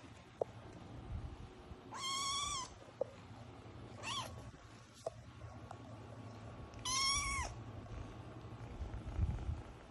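Eight-week-old kitten meowing three times, a couple of seconds apart: two high-pitched meows of about half a second with a short one between them.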